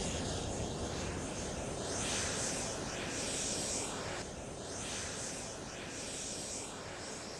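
Jet engine of the nEUROn unmanned combat aircraft, a Rolls-Royce Turbomeca Adour turbofan, running as the aircraft rolls along the runway. It is a steady rushing noise with a high hiss that swells and fades several times.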